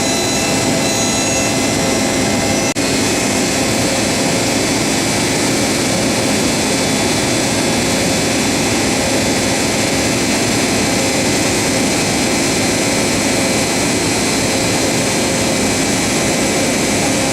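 LeBlond Makino MC1813 CNC horizontal machining center running under power: a steady, even rushing noise with faint high whines over it.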